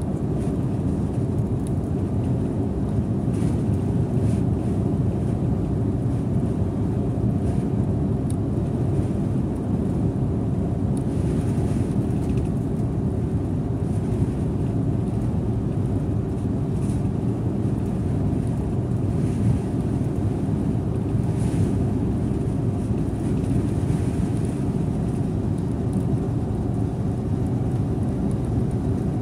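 Scania Interlink bus on the move, heard from the driver's seat: a steady low rumble of engine and road noise, with a few faint clicks and rattles.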